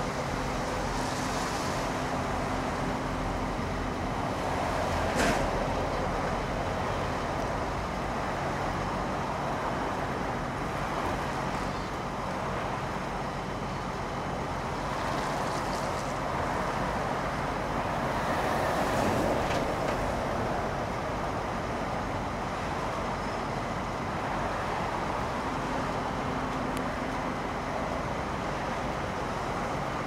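Heavy diesel machinery of an asphalt paving job running steadily: an asphalt paver and asphalt trucks, with one sharp knock about five seconds in.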